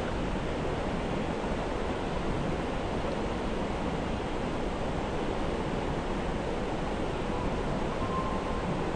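Flowing river water making a steady, even rushing sound.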